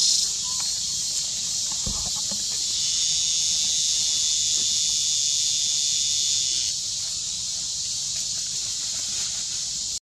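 Steady, high-pitched drone of a forest insect chorus that thickens about three seconds in and eases again near seven seconds, with a single soft knock about two seconds in.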